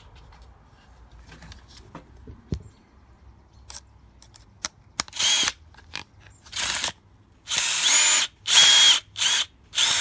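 Electric drill driving a long screw through a doorbell's plastic body into wood, in a run of short bursts from about halfway in, the motor's whine rising and falling with each squeeze of the trigger.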